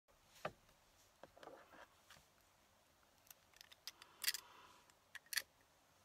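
A fountain pen being picked up and uncapped: a scattering of small, sharp plastic clicks, the loudest about four seconds in and a quick pair near the end, with soft rustling of paper and sleeve between them.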